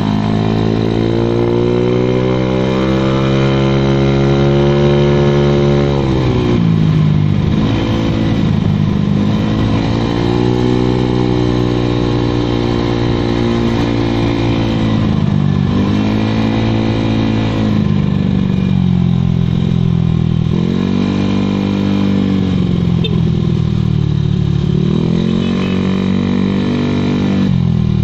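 Honda Vario 110 carburetted scooter's single-cylinder engine breathing through an AHM standard racing exhaust while being ridden: the note climbs slowly under throttle for several seconds, then drops as the throttle is eased, over and over.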